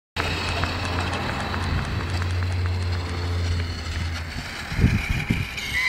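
Radio-controlled motorbike's motor running steadily with a faint high whine, dropping away about four seconds in, followed by a few short low rumbles.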